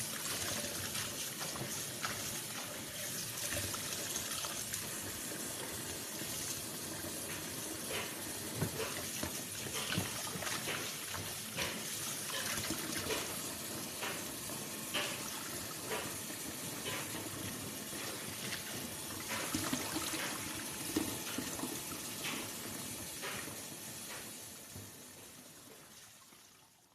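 Running water as pomelo peel is rinsed by hand, with small knocks and clicks of handling scattered throughout. It fades out near the end.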